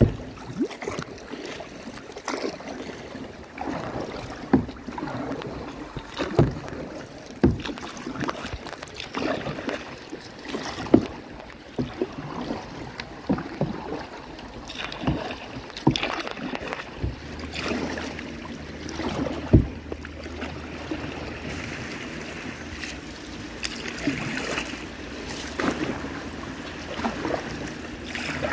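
Kayak being paddled: the paddle blades dip and splash in the water at an uneven stroke of roughly one every second or two, with sharp knocks among them, over a bed of lapping water and wind. A low steady hum comes in a little past halfway.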